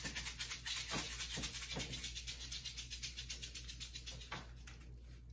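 A foil packet of Pop Rocks popping candy shaken fast and steadily, the hard candy crystals rattling inside. The rattle fades out toward the end, with a few light clicks of the packet being handled.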